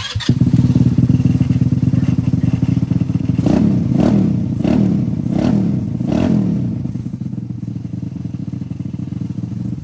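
GY6 169cc four-stroke single-cylinder go-kart engine starting at once on a freshly fitted ignition coil and running. It is revved quickly five times a few seconds in, then settles back to a steady idle.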